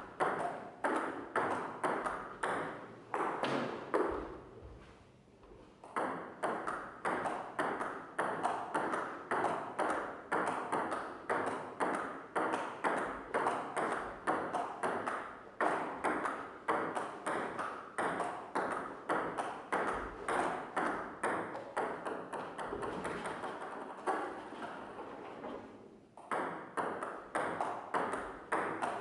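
A rapid, continuing series of ringing pings, about three a second, each struck sharply and decaying quickly, pausing briefly twice.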